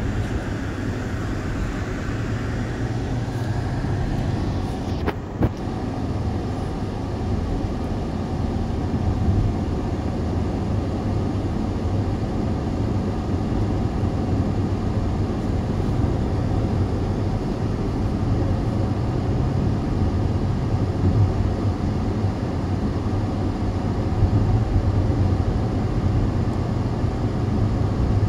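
Steady road noise of a moving car, a low rumble, with one sharp click about five seconds in.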